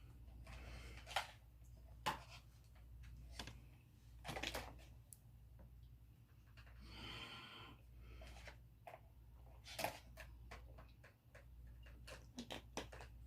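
Quiet room with scattered light clicks and knocks, like small objects being handled, and a short rustle about seven seconds in.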